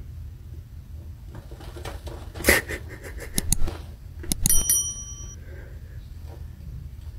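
Scratching and crunching in crystal cat litter in a plastic tray: a run of sharp scrapes and clicks over about three seconds, with a short bright ringing ping about halfway through.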